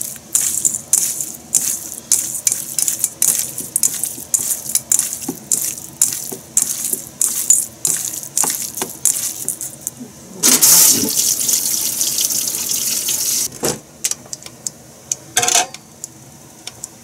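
Hands kneading raw chicken pieces with salt in a stainless steel bowl: quick wet squelches and clicks for about ten seconds. Then water runs from a tap for about three seconds, followed by a couple of single knocks.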